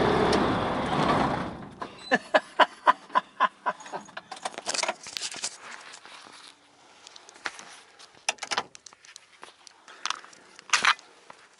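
Light aircraft's piston engine idling, then cutting out about one and a half seconds in as it is shut down. A quick run of about a dozen sharp clicks follows, then scattered metallic clinks and rustling in the cockpit.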